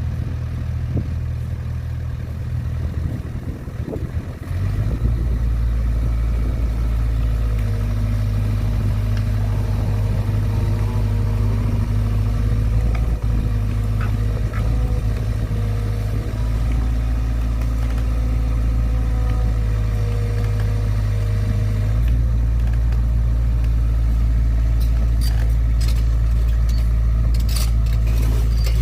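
Excavator's diesel engine running under load with a steady low drone, getting louder about four seconds in as it takes on work, and a steady whine over it through the middle. Several sharp metallic clicks near the end.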